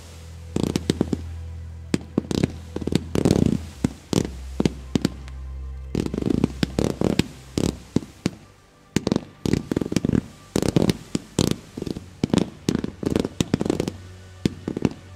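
Fireworks display: a dense, irregular string of launch thumps and sharp bangs, several a second, from rising tailed comets and small crackling bursts, with a short lull a little past the middle. Music plays steadily underneath.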